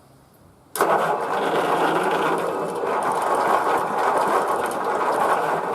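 The electric starter of a Rover Colt 8 ride-on mower cranking the engine with a steady whir, starting abruptly about a second in. The engine does not catch, which the owner puts down to weak batteries.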